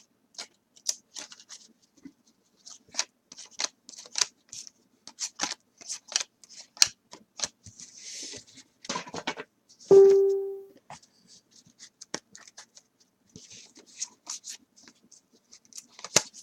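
Chrome trading cards being peeled apart and handled: a run of small clicks and rustles as cards that are stuck together are separated one at a time. About ten seconds in, a short, loud pitched tone sounds and fades within a second.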